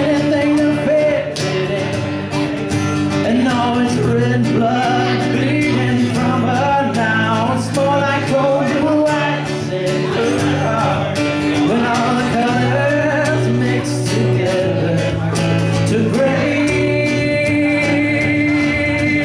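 Acoustic guitar strummed in a steady song accompaniment, with a man singing along.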